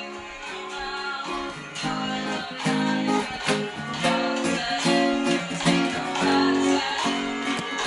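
Guitar playing strummed chords, growing louder over the first few seconds.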